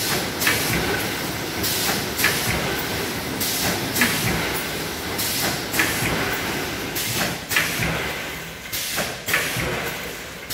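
Automatic vertical form-fill-seal snack pouch packing machine running through its bagging cycle: sharp hissing clacks come in pairs about every two seconds over a steady mechanical hum as pouches are sealed, cut and dropped.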